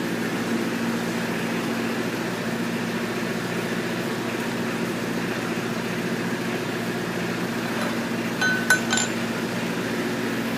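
A steady mechanical drone, like an engine running, with a few sharp metallic clinks of tools or engine parts being handled near the end.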